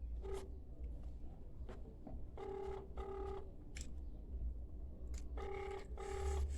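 Phone ringback tone heard over speakerphone while a call is connecting: a double-ring cadence near 400 Hz, two short tones close together, a pause of about two seconds, then two more.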